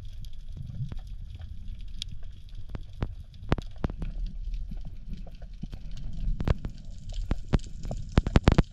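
Underwater sound picked up by a camera in its housing: a steady low rumble of moving water, with scattered sharp clicks and crackles. A quick burst of louder clicks comes near the end.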